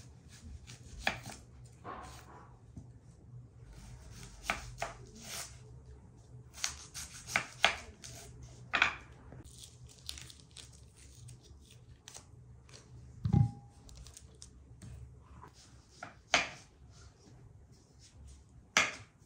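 Hand vegetable prep: a knife cutting a tomato on a wooden board, then dry onion skin torn and peeled off with crackles, making scattered clicks and rustles. One louder knock with a short ring about two-thirds of the way through.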